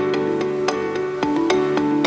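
Background music: plucked, guitar-like notes over a steady beat.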